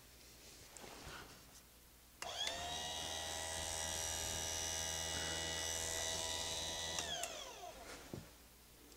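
Electric chain-sharpening grinder's motor switched on, whining up to speed about two seconds in, running steadily for about five seconds, then switched off and winding down with a falling whine.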